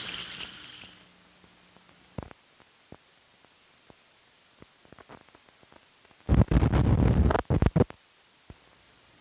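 Worn film soundtrack running over blank frames: a faint hiss with scattered clicks and pops, then a loud burst of rough crackling noise lasting under two seconds past the middle.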